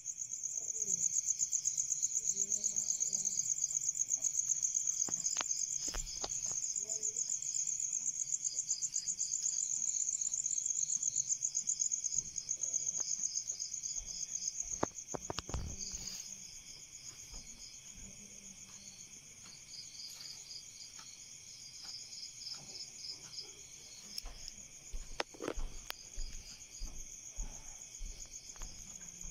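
A steady chorus of insects trilling with a fast, even pulse, louder for the first dozen seconds and then softer. A few soft knocks and thumps are scattered through it.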